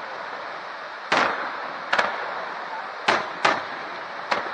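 Aerial firework shells bursting: five sharp booms at uneven intervals, each trailing off briefly, over a steady background hiss.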